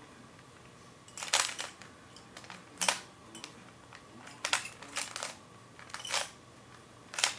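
Rubik's Cube being turned by hand: about six short bursts of plastic clicking as its layers are twisted, spaced a second or so apart, while the last layer is being solved.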